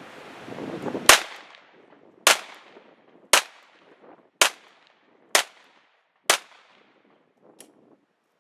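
Glock 43 9mm pistol firing six shots, about one a second, each a sharp crack with a short echo; the first is the loudest.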